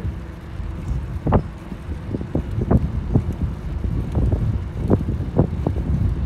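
Wind buffeting the microphone of a phone carried on a moving bicycle, a steady low rumble, with about ten irregular sharp knocks and rattles from the bike.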